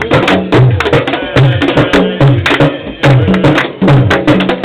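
Drum ensemble playing a steady rhythm: deep drum strokes about twice a second under quick, sharp clicking strikes.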